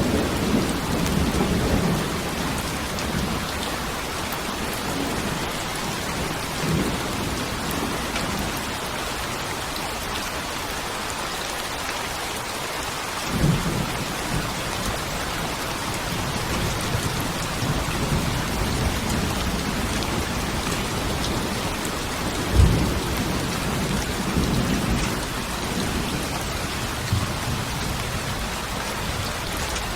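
Steady heavy rain hissing, with low rolls of thunder rumbling in several times: strongest at the start, again about halfway through, and near the three-quarter mark.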